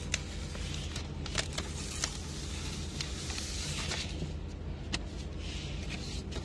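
Paper template sticker being peeled and pressed against a car dashboard: paper rustling and crinkling in two spells, with a few sharp clicks and taps, over a steady low hum.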